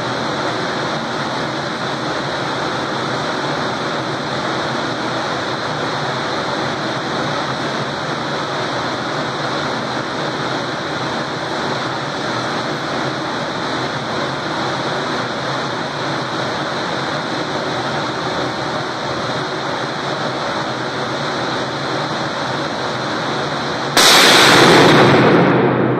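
A steady hiss, then near the end a single .50 BMG rifle shot in an indoor shooting range: sudden and very loud, its echo dying away over about a second and a half.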